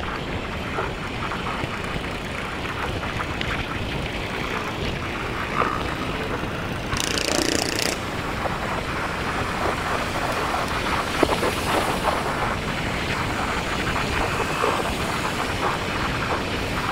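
Riding noise from a motorcycle on a concrete road: its engine, tyres and wind on the microphone make a steady rushing noise. A brief louder hiss comes about seven seconds in.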